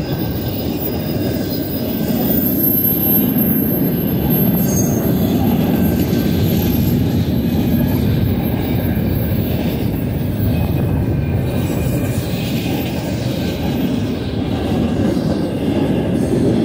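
Freight train rolling past at track side: a steady rumble of wheels on rail, with a faint high wheel squeal above it.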